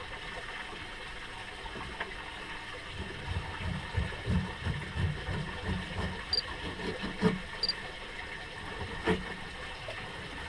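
Steady hiss of wind and water around a drifting fishing boat. Through the middle comes a run of irregular low thumps, then two sharp knocks, from work on deck at the stern.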